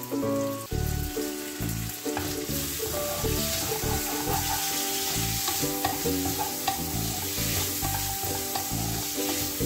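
Squid pieces sizzling in hot oil in a nonstick frying pan, stirred and turned with a wooden spatula.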